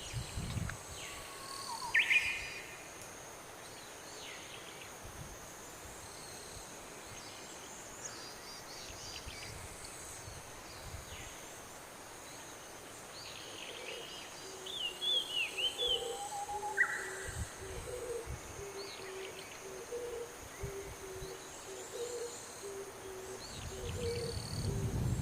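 Outdoor natural ambience: a steady high insect drone with scattered bird chirps and calls. From about midway a low call repeats roughly once a second.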